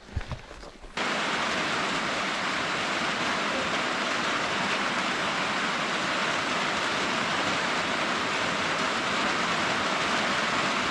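Steady hiss of heavy rain that starts abruptly about a second in and cuts off sharply at the end.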